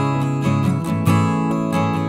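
Background music: a strummed acoustic guitar tune.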